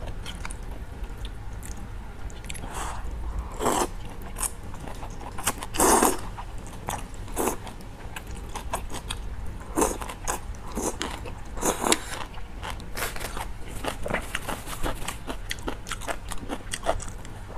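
Close-miked eating: noodles slurped from a bowl of soup, with wet chewing in between. A few louder drawn-out slurps come in the first part, and quick small chewing clicks crowd together in the last few seconds.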